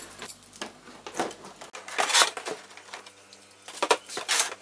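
Clear plastic blister packaging being handled: irregular crackles and clicks of stiff plastic, with a quick run of them near the end.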